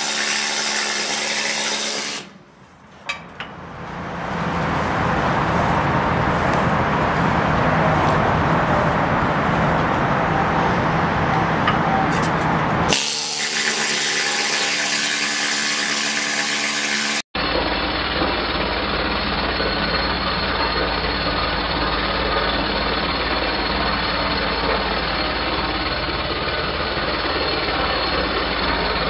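Pneumatic needle scaler rattling against a rusty steel deck, chipping off rust. The noise dips briefly a couple of seconds in, and breaks off sharply about seventeen seconds in before running on duller.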